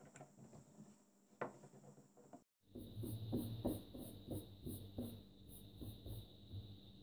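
A long thin wooden rolling pin rolling baklava dough on a wooden board, with a knock about a second and a half in. After a cut, hands scrunching and rustling a paper-thin sheet of dough into pleats, a quick run of short rustles, over a steady faint hum and a high whine.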